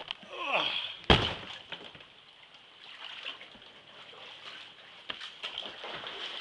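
Floodwater sloshing and splashing, with scattered small knocks. A short falling squeak near the start is followed by a single sharp, loud knock about a second in.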